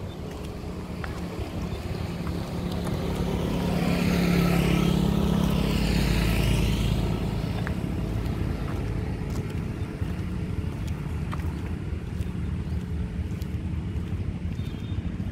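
A motor vehicle passes by, its engine and tyre noise swelling to its loudest a few seconds in and then fading, over a steady low engine drone.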